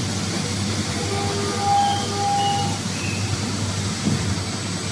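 Steady hum and hiss of industrial machinery running in a factory hall, with a few short, high tones around the middle.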